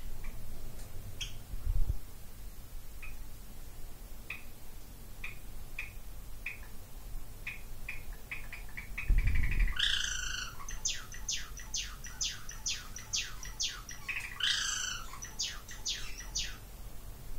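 White Java sparrow singing: single chip notes a second or so apart that gradually quicken, then a loud burst and a fast run of sharp notes, with a second burst a few seconds later before the song stops. Two low thumps, one about two seconds in and one just before the song speeds up.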